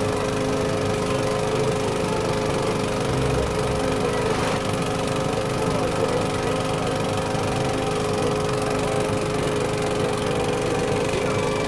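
Small Meccano-built model steam tractor running steadily under heavy load, a constant mechanical hum with a few steady tones.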